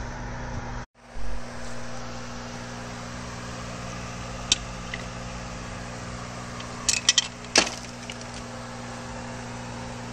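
Steady background hum, with a short break about a second in, then a few sharp metallic clinks in the middle, a single one and then a quick cluster, from bolts, washers and tools handled on a workbench.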